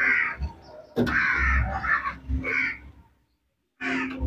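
Crows cawing, several harsh calls one after another, with a brief cut to silence about three seconds in.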